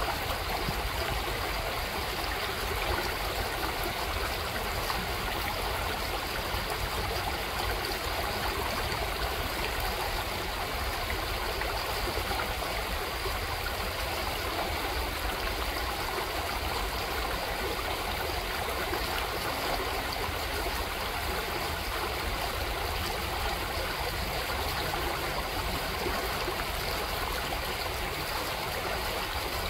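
Shallow gravel creek running steadily over stones, with the burble of a small riffle and no splashes or other sounds.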